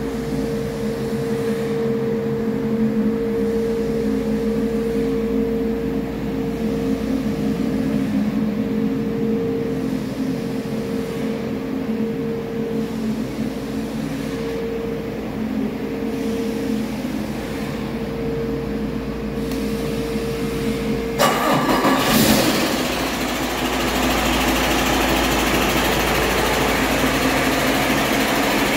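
Detroit Diesel DD15 inline-six diesel engine running steadily on a test stand with an even hum. About three-quarters of the way through the sound changes abruptly, with a brief loud burst, then goes on as a louder, rougher rush.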